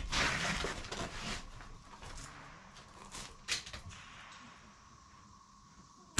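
Rustling with scattered clicks and knocks as the shooter gets down to prone with the rifle, the loudest knock about three and a half seconds in.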